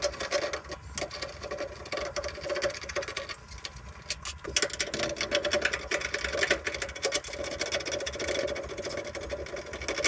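A 1/4-inch nut driver working the two fasteners on a washing machine's control panel loose: rapid, dense clicking and rattling of tool and metal.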